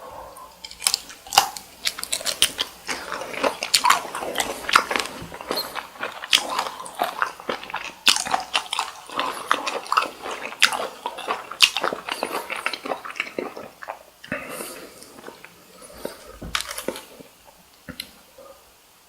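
Close-miked biting and chewing of cooked cocktail shrimp: a dense run of crunching and smacking clicks that thins out to scattered ones about fourteen seconds in.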